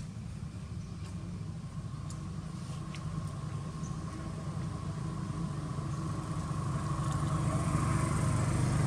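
A motor vehicle's engine running, growing steadily louder.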